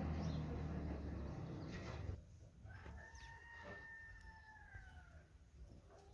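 A steady noise with a low hum cuts off about two seconds in. Then a rooster crows once, a single long held call.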